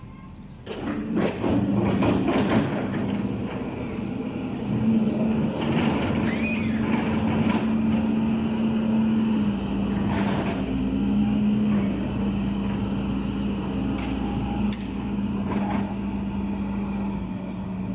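Backhoe loader's diesel engine working under load, its pitch shifting slightly as it revs up and down, with a few sharp metal clanks.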